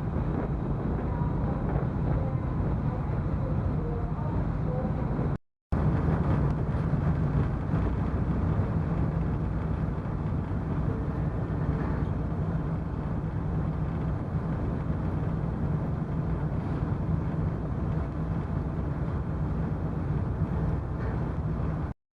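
Steady low drone of the Ise Bay car ferry Toba Maru's engines while under way, with one brief break in the sound about five seconds in.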